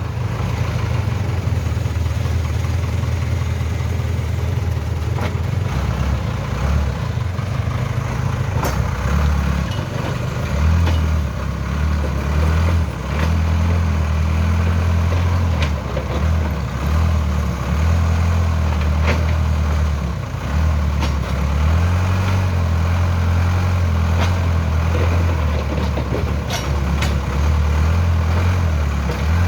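Heavy diesel machinery engine running continuously, its low note wavering up and down in strength, with a few brief clicks.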